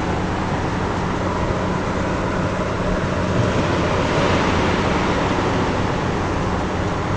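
Toyota Land Cruiser engine running steadily, a constant low hum under a dense mechanical whoosh, with no revving; the owner presents this engine sound as a problem.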